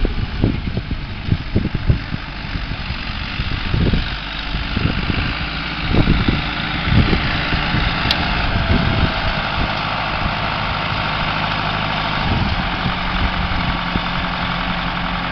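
New Holland 7740 tractor engine running steadily while it pulls a haybob tedder through cut grass. Low gusts of wind on the microphone come and go in the first half.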